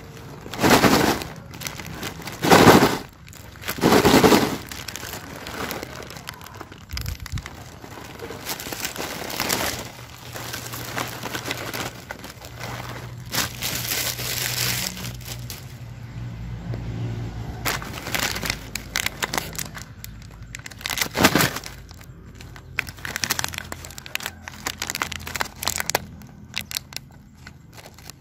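Plastic snack packaging crinkling and rustling as it is handled: the shrink-wrap of a multipack and the puffed-snack bags themselves. It comes in irregular bursts, loudest in the first few seconds and once more later on.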